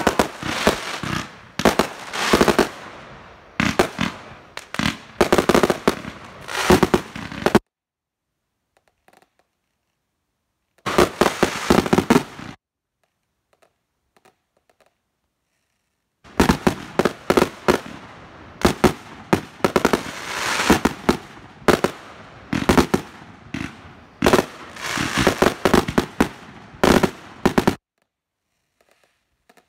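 Consumer aerial fireworks firing in rapid volleys of sharp launch shots and bursts. They come in three runs that each cut off suddenly: a long run at the start, a short one about eleven seconds in, and a long one from about sixteen seconds in to near the end.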